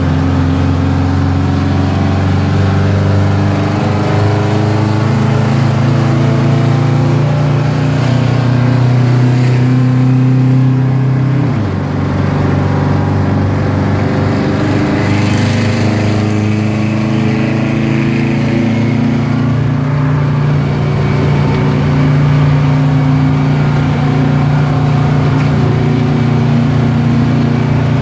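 A 1982 Hahn fire truck's 8V71N Detroit Diesel, a naturally aspirated two-stroke V8, pulling on the road, heard from inside the cab. About twelve seconds in the engine note changes abruptly and dips briefly, as the Allison automatic changes gear. It then climbs again and settles into a steady drone.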